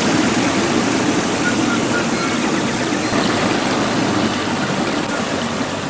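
A small micro-hydro generator of about half a kilowatt spinning very fast in a stream, over a steady rush of water.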